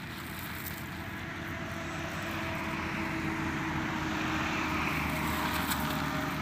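A distant motor engine droning, slowly growing louder to a peak about four to five seconds in, then easing off a little.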